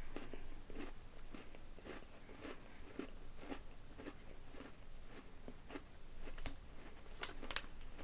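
Close-up chewing of a crunchy pumpkin spice Fudge Stripes shortbread cookie, about two chews a second. There are a few sharper crunches near the end.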